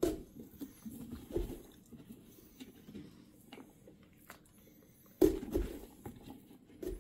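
Kitchen knife cutting into a pumpkin's shell: scattered soft crunches and low knocks, with a louder cluster about five seconds in.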